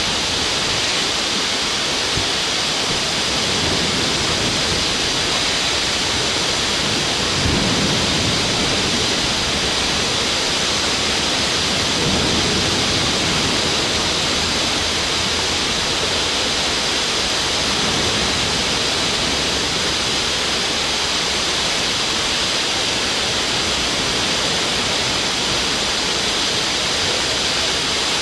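Steady, even hiss of a rough sea with breaking waves, with a few faint low thumps about a third of the way in, near the middle and about two-thirds through.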